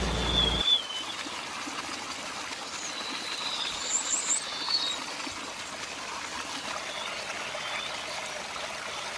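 Water trickling and pouring from a toy water pump's outlet pipe into a small tank, after a low hum cuts off about half a second in. A few faint high chirps sound over the water a few seconds in.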